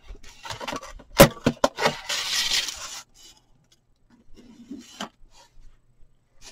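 Snap-off utility knife blade cutting through foam board: a rough scraping broken by a run of sharp clicks and snaps about a second in, then quieter handling sounds with a single click.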